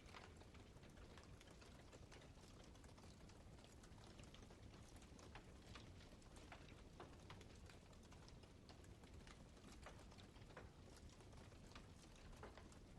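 Campfire burning with faint, irregular crackles and pops from the wood over a steady low rumble of the flames.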